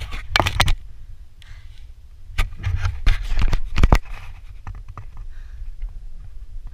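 Wind rumbling on a GoPro microphone, with two spells of loud scraping noise: one right at the start lasting under a second, and a longer one from about two and a half to four seconds in.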